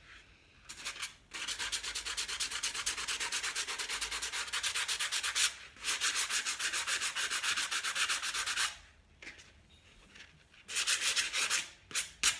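Hand sanding of a painted glass mason jar: a sanding pad rubbed quickly back and forth over the paint, about six strokes a second, in long runs broken by short pauses and ending in a few brief bursts. The paint is being lightly sanded off to give the jar a distressed, rustic finish.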